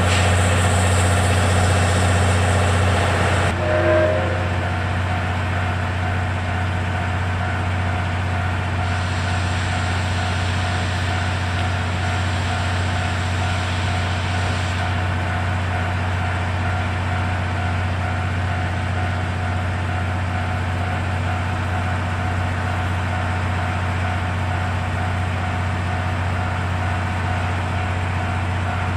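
Steady, even hum of an idling engine, easing slightly about three and a half seconds in, with a brief squeal just after.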